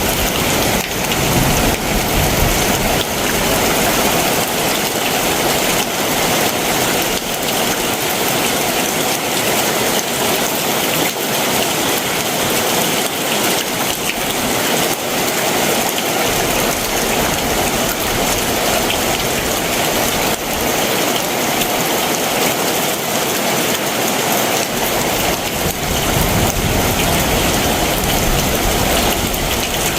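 Heavy summer monsoon downpour, rain pouring steadily onto surfaces. A low rumble comes in near the start and again in the last few seconds.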